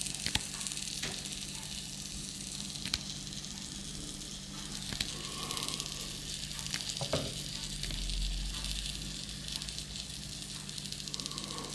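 Freshly baked jacket potatoes sizzling on a hot baking tray, with scattered small crackles over a steady low hum.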